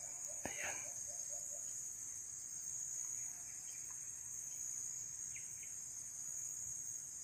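Steady, high-pitched drone of insects in the undergrowth, with a quick run of low repeated notes during the first second and a half.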